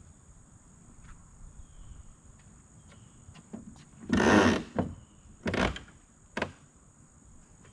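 Steady high insect buzz, with two short scraping rushes about four and five and a half seconds in and a single knock soon after: handling noises at a pickup's tailgate.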